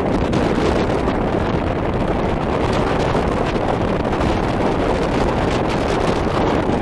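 Wind buffeting the microphone over choppy sea, a steady loud rushing noise with no distinct events.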